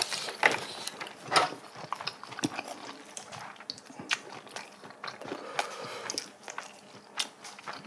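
Irregular clicks and clinks of metal tongs and chopsticks against a stainless steel serving tray and bowls as food is served, with some chewing.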